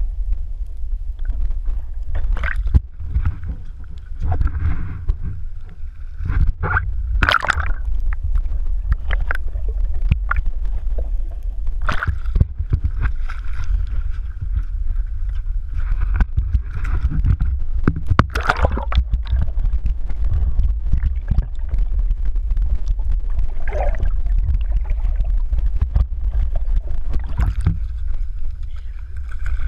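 Water sloshing and gurgling around a waterproof action-camera housing as it moves in and out of the sea beside a boat, over a steady low rumble, with many sharp knocks, the loudest about seven and eighteen seconds in.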